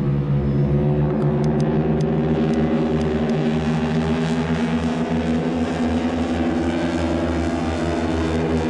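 Display airplane's engine droning steadily as it flies past with pyrotechnics burning, with a few faint ticks between one and two seconds in.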